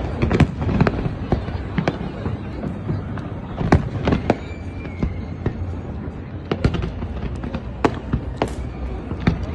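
Fireworks display: many sharp bangs of bursting shells at irregular intervals, over a continuous low rumble of further explosions and their echoes.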